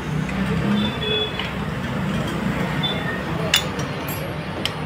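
Steady low hum of a vehicle engine running in the background, with a few short metallic clicks near the end from a screwdriver working at a motorcycle engine's cylinder head.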